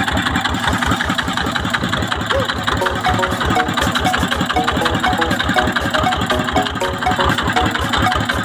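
A boat's engine running steadily with a fast, even chug, under background music whose melody comes in more clearly about three seconds in.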